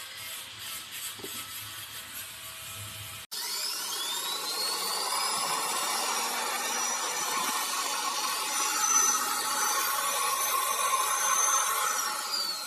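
Faint clicking for about three seconds, then an electric rotary polisher's motor starts suddenly, spins up with a rising whine and runs steadily at high speed until it cuts off abruptly.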